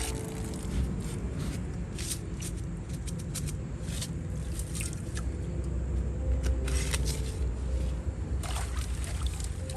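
Water sloshing and trickling, with scattered short clicks and splashes.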